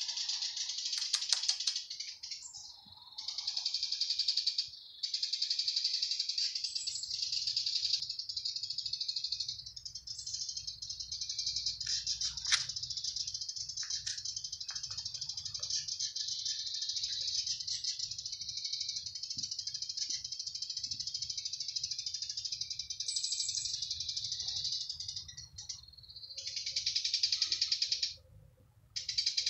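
Cicadas buzzing in the tree, a loud, high, rasping chorus of very fast pulses that breaks off and restarts a few times.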